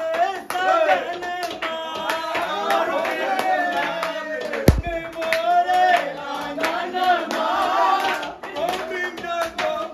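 A group of men singing loudly together, with rhythmic hand clapping and a steel plate beaten as a drum. One loud thump about halfway through.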